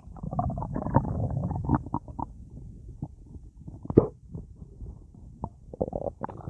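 Stomach gurgling and rumbling on a full, gassy belly after a meal and a drink, with irregular bubbly pops and one sharp pop about four seconds in.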